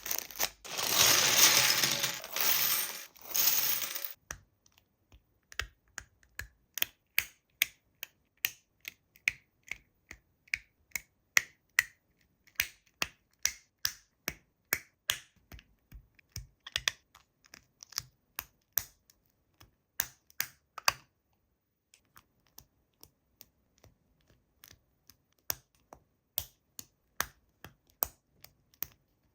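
Small hard plastic pieces being handled, clicking and tapping against each other in an irregular run, after a few seconds of rustling at the start.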